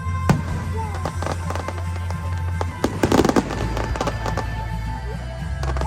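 Fireworks going off in quick, repeated bangs and crackles, with a dense cluster of louder bursts about three seconds in, over a show's music soundtrack with a heavy, steady bass.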